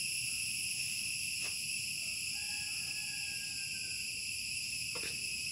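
Steady high-pitched trill of crickets, with one faint tap about a second and a half in.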